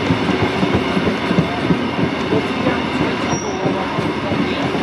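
Heritage passenger carriage running on narrow-gauge track, heard from an open window: a steady rumble and rattle of the carriage with the clickety-clack of the wheels over the rails.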